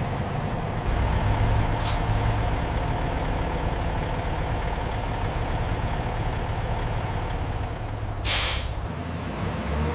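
Heavy truck engine running steadily, with a short hiss of air about two seconds in and a longer, louder air-brake hiss near the end.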